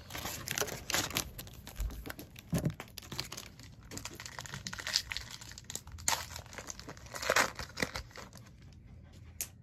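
Plastic cello wrapper of a trading-card pack being torn open and handled, irregular crinkling bursts that thin out near the end.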